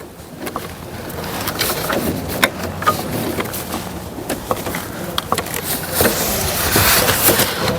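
A passing vehicle whose noise builds steadily over several seconds, with scattered small clicks of wiring and plastic being handled inside a car door.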